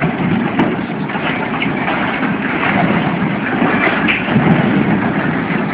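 Heavy demolition machinery at work: a dense, continuous crunching and grinding of debris over a low engine rumble.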